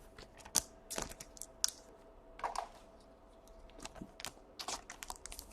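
Light, irregular clicks and taps of trading cards and plastic card holders being handled and set down.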